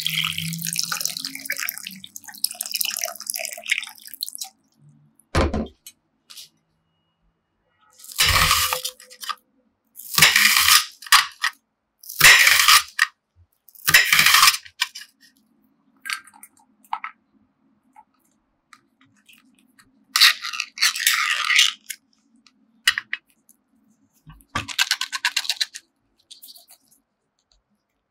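Water poured into a glass bowl of Korean rice cakes for about four seconds, then a single knock. After that comes a kitchen knife slicing through an onion in separate strokes about two seconds apart, with two more strokes later on.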